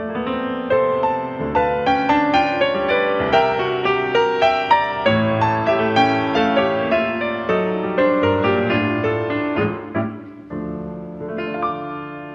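Piano playing a fast, dense classical passage of many struck notes. About ten seconds in it breaks off briefly, then strikes two chords that are left to ring and fade.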